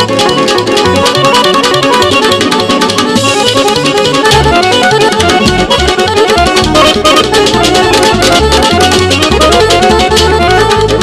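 Live band music: electric guitar and accordion play a melody over a steady drum beat.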